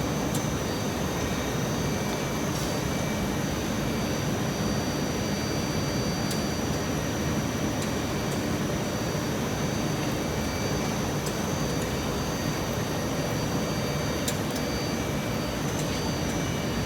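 Steady machine din of a running rubber extrusion and microwave vulcanization production line, with a few thin high whines held throughout and occasional faint clicks.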